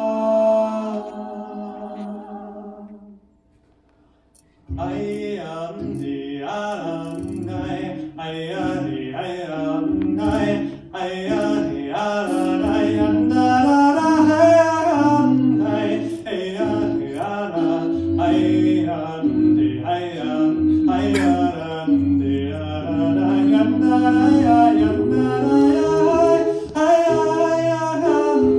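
Small mixed vocal ensemble singing a cappella in harmony. A held chord fades out about three seconds in, and after a second's pause the voices come back in together and carry on the song over a low bass line.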